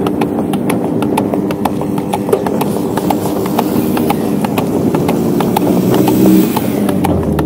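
A carriage horse's hooves clip-clopping on a paved road in a steady rhythm of about three to four strikes a second as it pulls the carriage, over a steady low drone.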